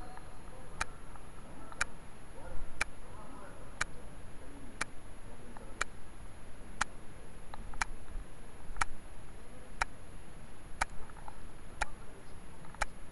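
Steady ticking, one sharp tick about every second, with faint muffled voices in the background.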